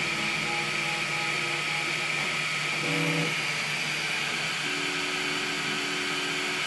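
3D printer running while it prints its final layer: its cooling fans give a steady hiss and whine, and its motors sound short notes that change pitch as the print head moves. Near the end, two motor notes hold steady.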